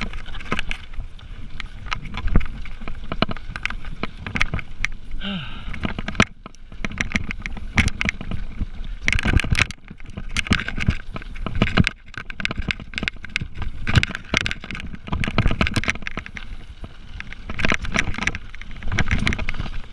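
Mountain bike riding fast down a rough dirt trail: wind rushing over the camera's microphone, with the bike rattling and clattering over bumps and rocks in uneven spells.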